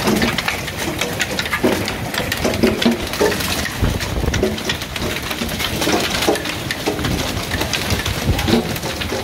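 Hailstones pelting a porch deck and railing: a dense, continuous patter of sharp clicks. Gusts of wind buffet the microphone about four seconds in and again near the end.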